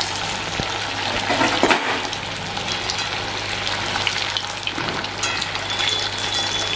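Sabudana (sago) patties deep-frying in hot oil in an iron kadhai: a steady, dense crackling sizzle, with a slotted spoon moving them about in the oil.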